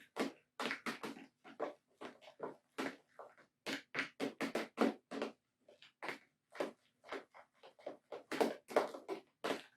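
Spoon stirring a thick mixture of aloe vera gel and oils in a bowl: a quick, uneven run of short scraping strokes, about two or three a second.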